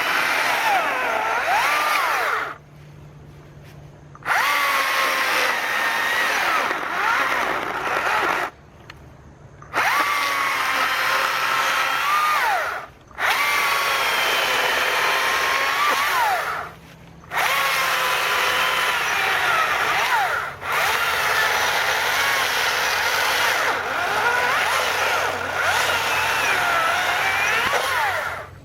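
STIHL battery-powered chainsaw with a 16-inch bar cutting logs in repeated runs of several seconds, stopping briefly about five times between them. Its electric whine dips and recovers as the chain bites into the wood, with the battery nearly drained but the saw still running at full power.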